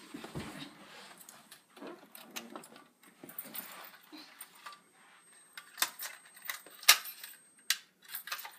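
Keys jangling and small metallic clicks as a Fire-Lite BG-12LR pull station is opened with its key and reset, with three sharper clicks in the second half.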